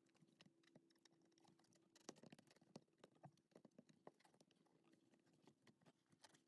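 Near silence, with faint scattered rubbing and clicking of hands working a rubber shift boot down over the gear lever, and a slightly louder knock about two seconds in.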